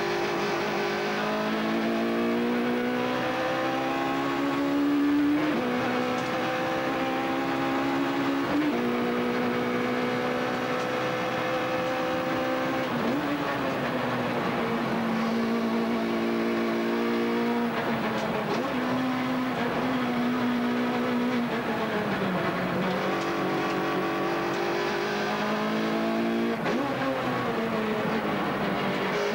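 Rally car engine heard from inside the cockpit, pulling hard up through the gears. The revs climb, then drop sharply at each gear change, about every three to five seconds, with short lifts into corners.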